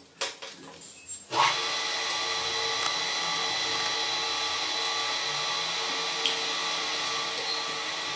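A few light clicks, then about a second and a half in a small electric power tool starts and runs at a steady speed with a constant whine.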